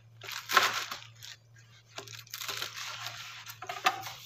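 Mushrooms being picked over and handled by hand: irregular rustles and small clicks and knocks, with a faint steady low hum underneath.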